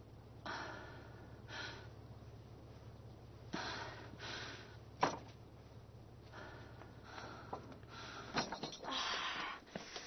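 Quiet, short bursts of breath-like noise and rustling, with a few light knocks and clicks, the sharpest about five seconds in and several more near the end.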